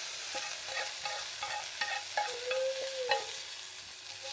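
Wild fern shoots sizzling as they are stir-fried in a pan, the sizzle fading slightly. A string of short pitched sounds runs over it, with one longer held one about the middle.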